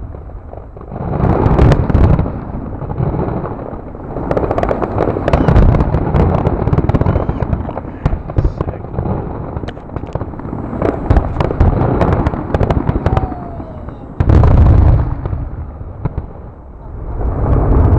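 Aerial fireworks finale: a rapid barrage of shell bursts, many overlapping booms and crackles with no pause between them, with a very loud stretch of booms starting suddenly about fourteen seconds in.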